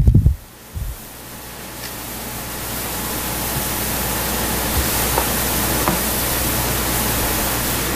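Steady hiss of room noise with a low hum underneath, swelling over the first few seconds and then holding level. A few faint knocks stand out from it.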